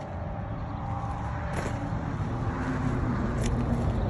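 Low rumble of a motor vehicle running, slowly growing louder, with a couple of faint clicks.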